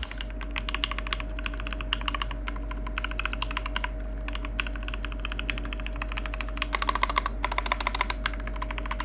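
Fast typing on a mechanical keyboard fitted with keycaps that feel like PBT plastic: a quick, continuous run of key clacks that gets busier near the end, over a faint steady hum.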